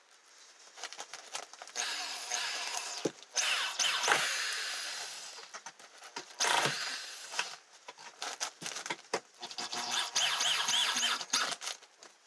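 Corded electric drill running in several bursts as it bites into a wooden attic joist, with a rough, rubbing noise and a thin whine in the later burst.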